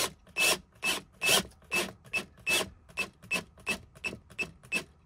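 Cordless drill/driver driving a screw through an aluminium L-track rail into the van wall, in a run of short grinding pulses about two or three a second that come a little faster toward the end.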